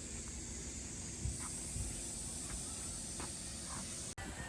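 Steady high-pitched insect chorus over a low rumbling background, cut off abruptly near the end.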